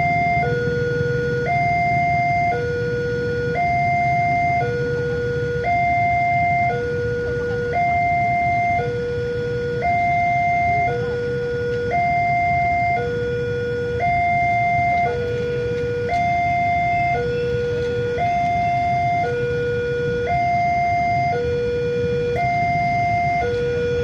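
Railway level-crossing warning alarm sounding at a closed crossing: an electronic two-tone signal, a higher and a lower tone alternating about once a second, repeating steadily.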